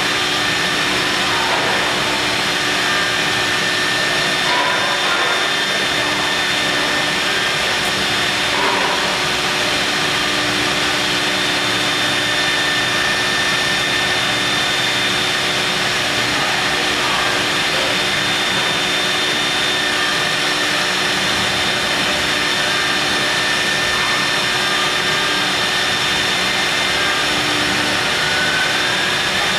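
CNC milling machine running steadily while machining marble: an even hiss with a constant whine, the tool cutting stone. A short rising tone comes in near the end.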